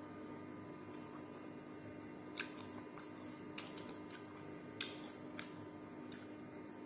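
Crispy fried galunggong (round scad) crackling as it is picked apart by fingers and chewed: scattered sharp crackles and clicks over a faint steady hum.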